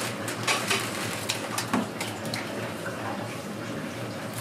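Food-stall kitchen clatter: a string of short clicks and knocks, most of them in the first couple of seconds, over a steady hiss of background noise.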